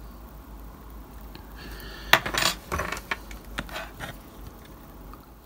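A cluster of light, sharp metallic clicks and clinks starting about two seconds in, the first the loudest, fading over about two seconds: steel tweezers being set down on the workbench.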